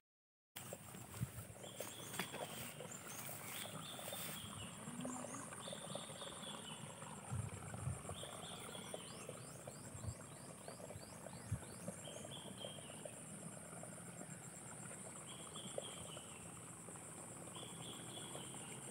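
Small animals chirping in short calls every second or two over a steady high-pitched hiss, with a fast run of ticks about halfway through and a few soft footfalls in grass.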